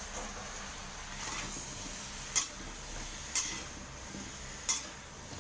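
Metal spatula knocking against a metal wok three times while stir-frying vegetables and shrimp, over a steady hiss of frying.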